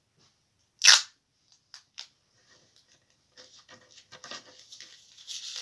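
Sheet of paper rustling and crinkling under the fingers as it is pressed flat and rolled by hand. Before that there is a single short, loud burst of noise about a second in, followed by a couple of faint clicks.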